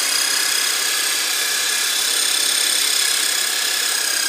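Percussion massager made from a retooled jigsaw, its motor running with a steady high-pitched whine as it is worked along the muscles beside the spine.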